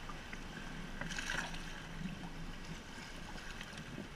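Seawater lapping and sloshing against a sea kayak's hull as it moves through choppy water, with a brief louder splash about a second in.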